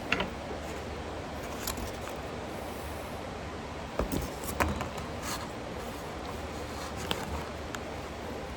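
A few short, soft clicks and rustles of handling over a steady low hum.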